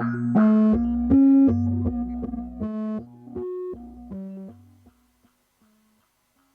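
Eurorack and Serge modular synthesizer playing a sequenced pattern of short pitched notes over a bass line. The notes thin out and fade away about five seconds in, leaving a few faint notes near the end.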